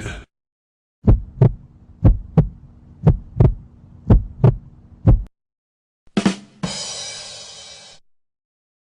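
Heartbeat sound effect: five double thumps, lub-dub, about one a second. It is followed by a short burst and a rushing noise that fades away near the end.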